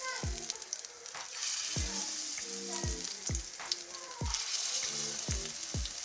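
Besan-battered potato patties (aloo tikki) sizzling as they shallow-fry in hot ghee in a steel pan, the sizzle growing louder about four seconds in as another patty is laid in. Background music with a steady beat runs underneath.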